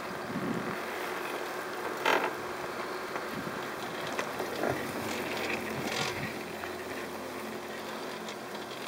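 Chairlift ride: a steady hiss of the moving lift with a few mechanical knocks and creaks, the loudest about two seconds in.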